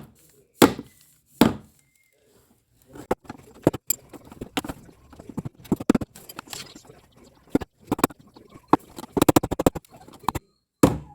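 Pliers working a retaining lock loose on a tanquinho washing machine: irregular clicks, knocks and scrapes of the tool against the lock and the machine's parts, with a quick run of rattling clicks near the end.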